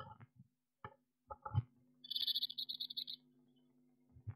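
Blue tit nestlings giving a rapid, high-pitched begging chatter for about a second, among knocks and thumps of the adult blue tit moving against the wooden nest box, over a faint steady hum.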